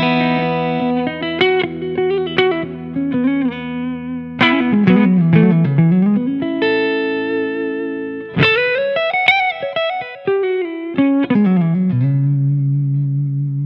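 Umeda UTE-Aldernico2 Telecaster-style electric guitar with two humbuckers, played as a melodic lead line of single notes with string bends and slides, settling on a long held low note near the end.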